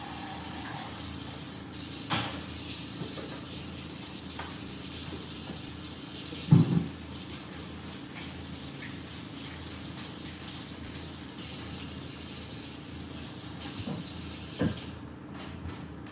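Kitchen tap running as hands are washed under it, turned off near the end. A single thump about six and a half seconds in is the loudest moment.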